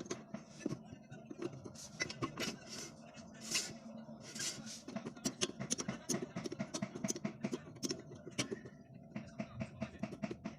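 Sharp clicks and light taps of hand tools and metal parts being handled, with a few brief whooshing noises in the first half and a quick run of ticks in the second half.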